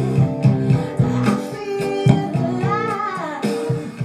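A song with guitar and a singing voice, playing as a test track through the loudness-compensation preamp circuit and amplifier; a sung phrase rises and falls about three seconds in.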